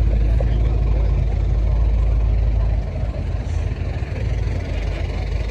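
A car engine idling close by, a deep low rumble that drops in level about three seconds in.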